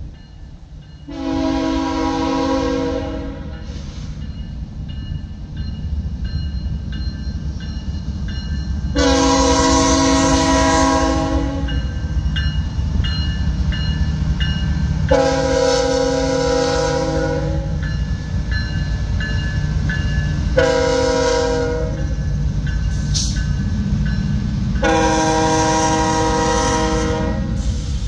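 Air horn of a CSX diesel freight locomotive sounding five blasts, the fourth shorter than the rest, as the train approaches a road grade crossing. A low engine and wheel rumble builds underneath.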